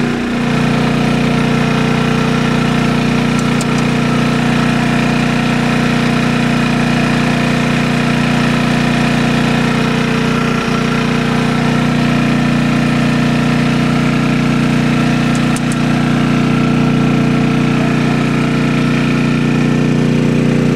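A small engine running at a steady speed, a constant drone with no change in pitch. There is one brief low knock about halfway through.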